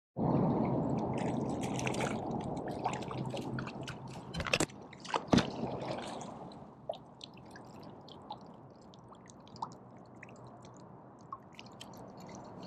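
Shallow water splashing and sloshing around a wading angler's feet. It starts suddenly and is loudest at first, then fades, with a couple of sharp knocks about halfway and scattered small clicks and drips after.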